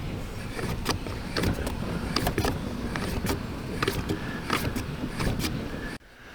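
Irregular clicks and knocks over a low rumble, several a second: hands working the seized fan of an RV rooftop air conditioner, which is stuck fast. The sound cuts off abruptly just before the end.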